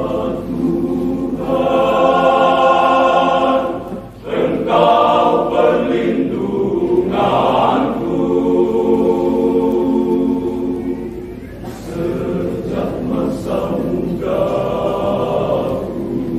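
Men's choir singing a hymn in long held chords, pausing briefly twice between phrases.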